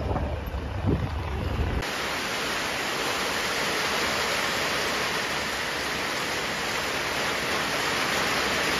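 Low rumble and wind buffeting from a moving vehicle for about two seconds, then a sudden change to a steady, even rushing hiss.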